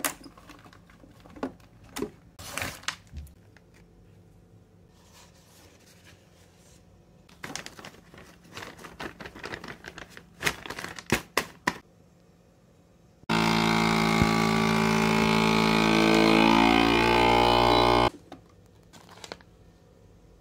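Plastic vacuum-seal bags crinkling and clicking as they are handled, then a FreshSealer vacuum sealer's pump runs steadily for about five seconds, drawing the air out of the bag with a hum that shifts slightly in pitch, and stops abruptly.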